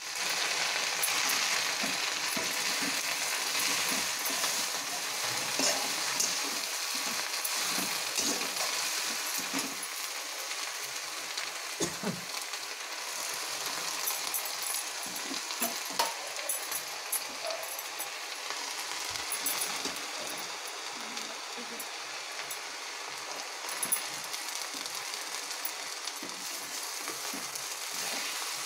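Sunsunia saag (water clover leaves) sizzling in hot oil in a kadai, with a steel spatula now and then scraping and clicking against the pan as the leaves are stirred. The sizzle is loudest at first and settles lower after about ten seconds.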